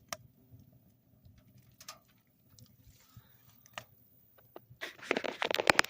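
Wood fire crackling in a small steel tent stove: a few sharp pops spread out, then a louder, rapid run of crackling near the end.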